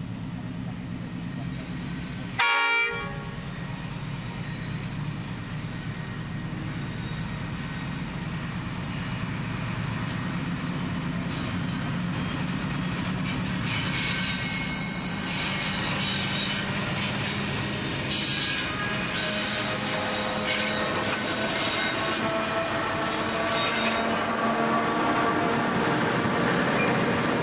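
Pacific National NR-class diesel locomotives hauling a long container train past: a steady engine rumble that grows louder as the train nears, with a brief horn toot about two seconds in. Once the wagons are passing, high-pitched wheel squeal and clatter from the container wagons join in, loudest about halfway through.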